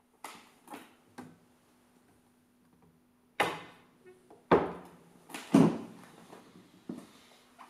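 Wooden knocks and thuds from an upright piano's key cover being handled and closed over the keys: a few light knocks, then three loud thuds about a second apart a few seconds in, and a softer knock near the end.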